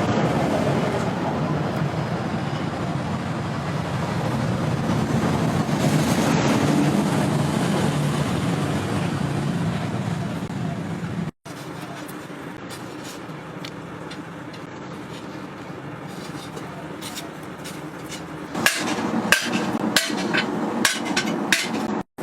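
Blacksmith's hammer striking hot metal, a run of sharp ringing blows about two a second in the last few seconds. Before them comes steady, dense workshop noise, then after an abrupt cut a quieter stretch with faint metal clicks.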